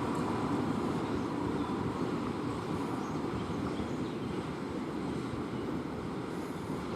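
Train wagons rolling past and away, a steady rumble that slowly gets quieter.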